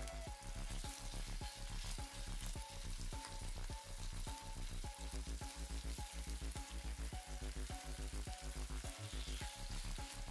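Marinated chicken pieces sizzling as they fry in hot oil in a pan, over background music with a steady beat.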